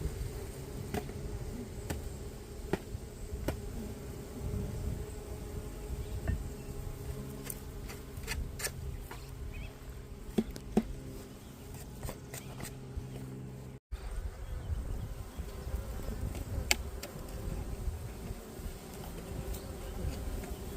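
Honeybees buzzing in a steady hum over an open hive, with scattered sharp clicks and knocks, most of them in the middle. The sound cuts out for an instant about two-thirds of the way through.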